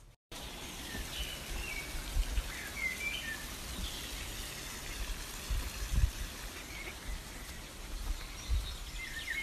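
Small birds chirping in short high twitters, mostly in the first few seconds and again near the end, over a steady background hiss, with a couple of low thumps on the microphone around the middle.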